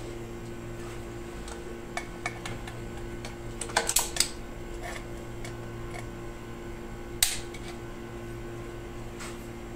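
Light clicks and clinks of a compression gauge's fittings and a pair of pliers being handled, over a steady low hum. A cluster of clicks comes about four seconds in and a single sharp one about seven seconds in.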